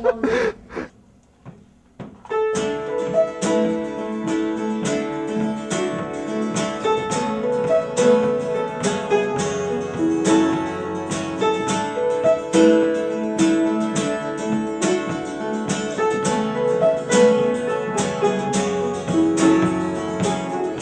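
Gentle acoustic music on piano and acoustic guitar, starting about two seconds in after a short pause, with evenly repeating notes over held chords.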